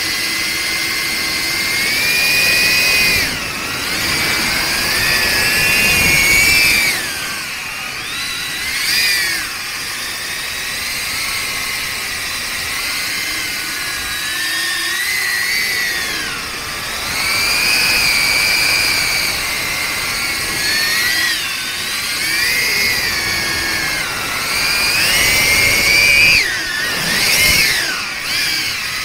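Darwin FPV CineAPE 25 cinewhoop's brushless motors and 63 mm ducted propellers whining. The pitch rises and falls again and again with throttle, with the strongest surges near the end.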